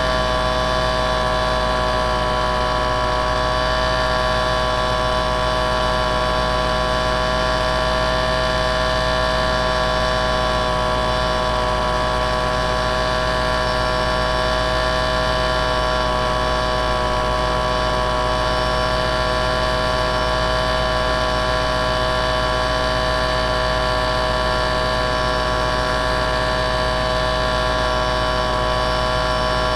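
A steady, unchanging motor-like hum with several fixed tones, holding one pitch and one level throughout.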